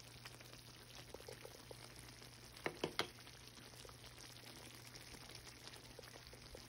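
Thick mixed-fruit chutney simmering in a pan: faint bubbling with small scattered pops over a low steady hum. Three sharp clicks come in quick succession a little under three seconds in.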